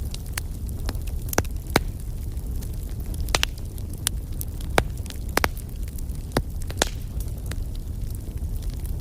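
Wood fire burning, with a steady low rumble and irregular sharp crackles and pops from the burning logs, about a dozen of them.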